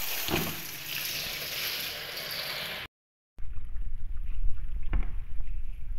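Tap water pouring into an empty plastic colander in a sink, a steady hiss. After a short break about halfway through, quieter sloshing and splashing as hands rinse whole fish in the water-filled colander.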